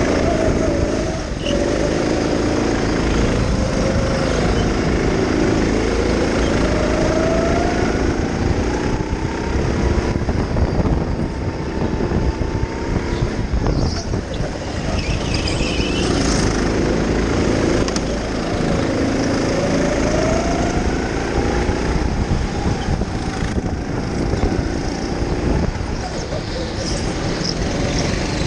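Go-kart motor whining while driven, its pitch rising and falling again and again as the kart speeds up on the straights and slows into the corners, over a steady rush of wind on the microphone.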